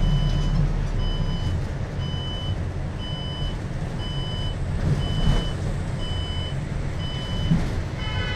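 City bus cabin on the move: steady engine and road rumble, with a high electronic warning beep repeating about once a second, each beep about half a second long.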